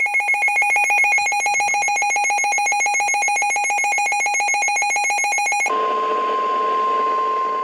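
Emergency Alert System alert tones announcing a flash flood warning. A loud, rapidly pulsing electronic buzz lasts nearly six seconds, then switches to a steady electronic alert tone.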